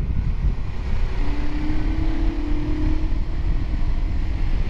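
Motorcycle riding on the road, with wind buffeting the camera microphone throughout. The engine note comes through and rises slightly for about two seconds in the middle.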